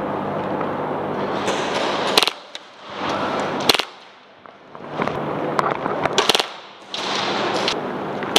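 Airsoft guns firing: four long bursts of rapid automatic fire, with sharp single cracks between them.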